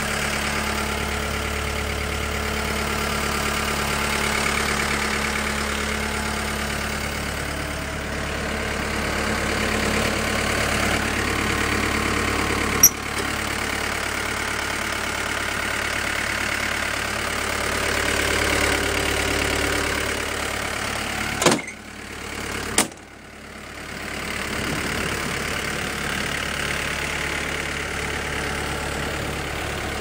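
Takeuchi TL250 compact track loader's diesel engine idling steadily. A sharp click about halfway through and two knocks a little later, with the engine briefly sounding quieter around them.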